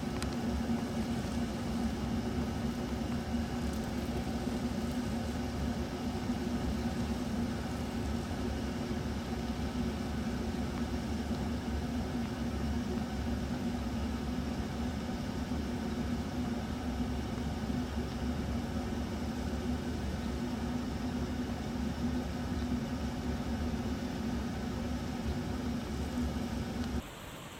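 Steady hum of an idling motor, holding several fixed pitches, cutting off suddenly near the end.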